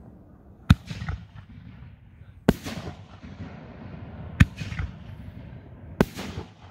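Four 4-inch 60-gram canister firework shells going off one after another, about two seconds apart, each a sharp bang followed within half a second by fainter pops.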